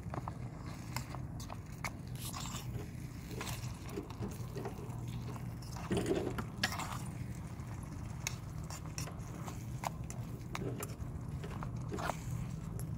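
A tiny steel spatula scraping and clicking irregularly against a miniature steel pan while stirring a thick onion-tomato masala, a little louder about six seconds in, over a steady low rumble.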